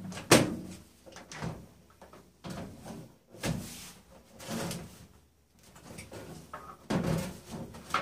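A microwave oven being turned upside down by hand: a series of knocks, bumps and scrapes as its cabinet is lifted, rotated and set back down on its stand. The loudest is a sharp knock right at the start.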